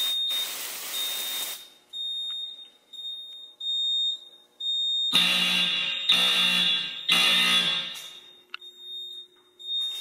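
A short hiss of canned test smoke sprayed from an aerosol can at a smoke detector. About five seconds in, fire alarm horns sound three buzzy blasts of about a second each: the detector has tripped during a walk test.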